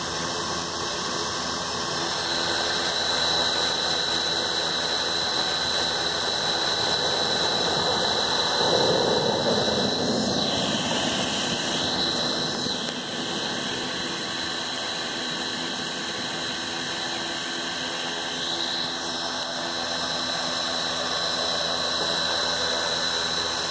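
Blade Chroma quadcopter's four brushless motors and propellers spinning steadily on the ground with a whine, swelling briefly about nine seconds in. The battery is nearly drained and the motors no longer have the power to lift the drone off.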